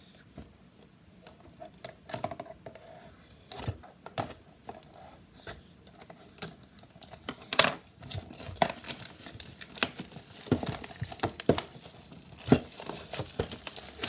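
Plastic shrink-wrap being cut open and peeled off a cardboard box: irregular crinkling and crackling, sparse at first and busier in the second half.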